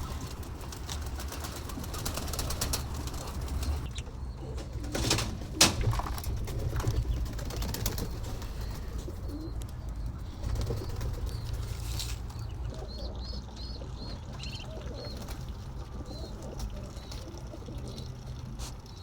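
Domestic pigeons cooing among the household birds, with a few small high chirps and several sharp knocks.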